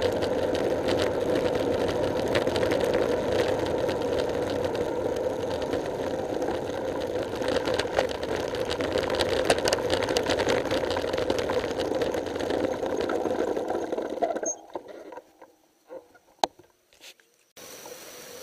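Bicycle rolling along an asphalt road, heard from a camera on the bike: a steady rumble of tyre, rattle and wind noise with many small clicks. It cuts off suddenly about three-quarters of the way through, leaving a few sharp clicks in near quiet.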